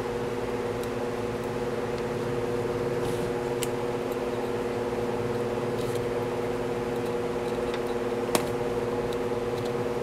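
A steady mechanical hum, with a few faint, light clicks of hand tools on the engine's valve rocker adjusters and one sharper click about eight seconds in.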